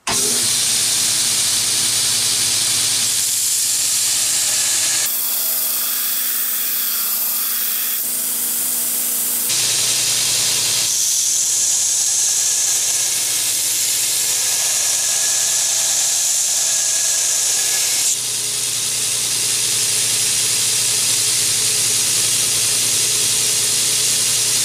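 Belt grinder running, its abrasive belt hissing against a hardened high-carbon steel razor blade as the edge bevel is ground, over a steady motor hum. The grinding noise shifts abruptly a few times as the work goes on.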